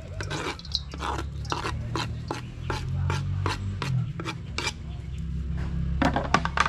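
Knife blade scraping chopped onion, garlic and scotch bonnet pepper off a wooden cutting board into a stainless steel bowl, in quick repeated strokes about three a second.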